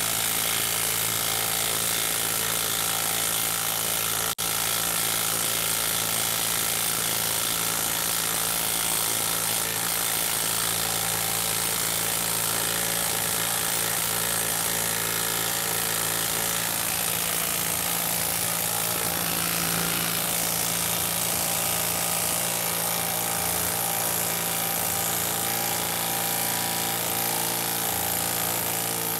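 Makita low-range half-inch cordless impact wrench hammering continuously under load as it drives a half-inch by 10-inch bolt into a log round, with a momentary break about four seconds in.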